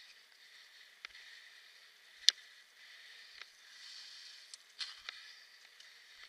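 Off-road kick scooter rolling over a bumpy grass track: a steady hiss with several sharp knocks and rattles, the loudest about two seconds in.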